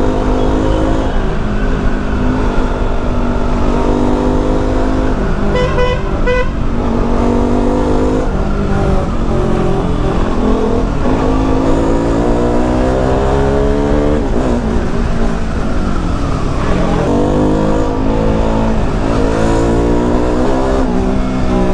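A KTM 200 Duke's single-cylinder four-stroke engine, breathing through an aftermarket side-mount exhaust, is very loud. Its revs climb and drop back again and again as the bike accelerates and shifts. A vehicle horn sounds briefly about six seconds in.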